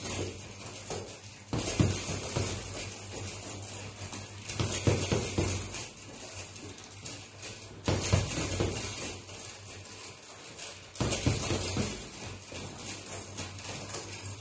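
Background music with a steady high shimmering percussion line that drops out briefly every three seconds or so, over softer low pulses.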